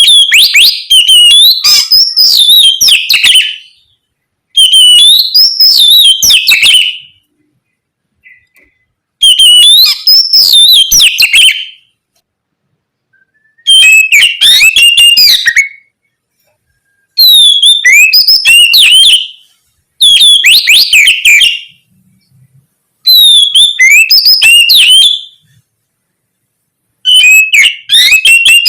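Oriental magpie-robin (kacer) singing loudly in a string of eight rich, fast whistled phrases, each about two to three seconds long, with short silent pauses between them.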